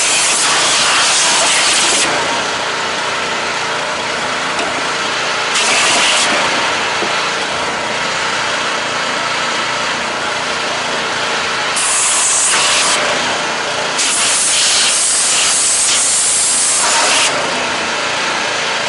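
Gas pressure washer engine running steadily while the spray gun is fired in four bursts of high-pressure hissing spray at a plastic bottle, the last and longest lasting about three seconds near the end.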